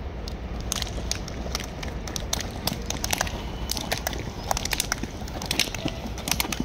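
Footsteps of a group walking over dry grass and bare earth while doing high kicks: many irregular crunching scuffs and steps, over a steady low rumble.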